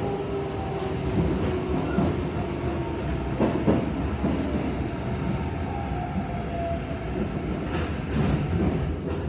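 Tokyo Metro 9000 series subway car heard from inside the cabin while running: a steady rumble of wheels and traction motors, with the VVVF inverter's whine sliding slowly down in pitch as the train slows. A few knocks of the wheels over rail joints come about three and a half seconds in and again near the end.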